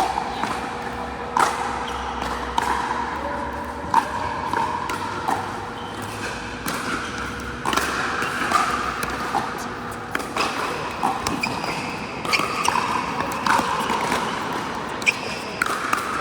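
Pickleball rally: paddles and the ball hitting the court give sharp pops every second or two, echoing in a large indoor hall.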